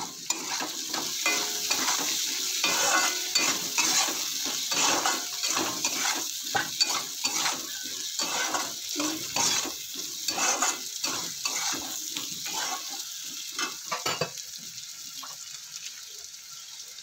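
A metal spatula is scraping and stirring diced potatoes and onions in spice paste around a black kadai, over a steady sizzle of frying. The rapid scraping strokes thin out near the end as the stirring stops.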